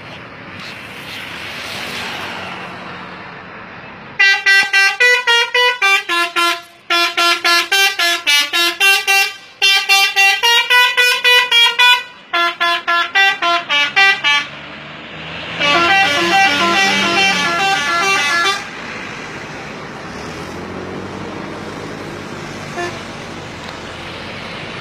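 Telolet multi-tone musical horn playing a quick run of short notes that step up and down in a tune for about ten seconds. After a short gap, a fuller horn sounds for about three seconds, with steady street and engine noise around it.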